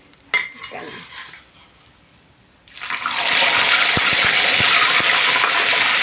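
Whole mujair (tilapia) deep-frying in hot oil in a wok: after a short knock early on, loud steady sizzling starts about three seconds in as the fish goes into the oil, with a few low knocks midway.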